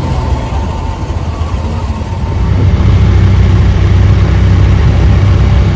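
A moving bus heard from inside its cabin: a steady low engine and road rumble that grows louder about two and a half seconds in.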